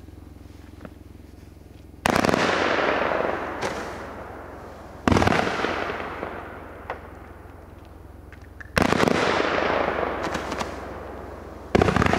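Blackboxx 'Feuerhengst' firework battery (cake) firing: four loud shots about three seconds apart, each followed by a noisy tail that fades over two to three seconds, with a few smaller pops in between. A steady low hum runs underneath.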